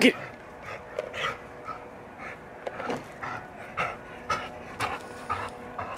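A dog panting in short, even breaths about twice a second while it holds a ball in its mouth, after a sharp knock right at the start.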